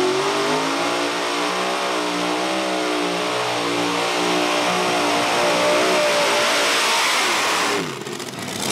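Several supercharged engines of a modified pulling tractor running at full throttle under load as it pulls the sled, with a steady, slightly wavering note. The sound drops away suddenly near the end.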